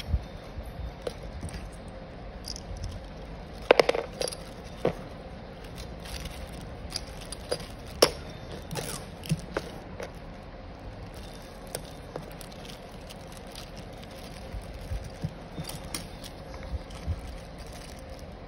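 Plastic packaging being handled: a zip-lock bag and plastic wrapping crinkling and rustling, with scattered sharp clicks and taps. The loudest are a cluster about four seconds in and a single sharp one about eight seconds in.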